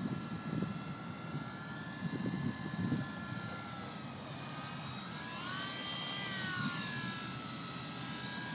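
Double Horse 9116 RC helicopter's electric motors and rotor whining in flight as it is brought in; about halfway through the whine gets louder and rises in pitch, then dips back down.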